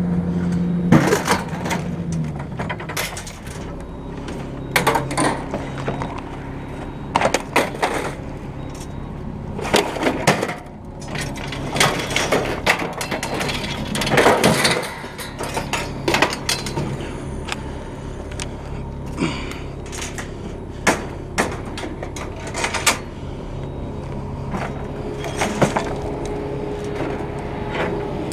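Scrap metal clanging and clattering in irregular bangs as pieces are pulled off a trailer and tossed onto the ground, with an engine running steadily underneath.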